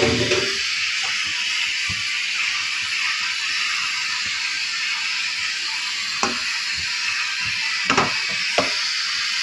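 Raw mango strips cooking in hot sugar syrup in a saucepan, a steady hissing sizzle, with a knock at the start and a few short knocks of the pan or spoon about six to nine seconds in.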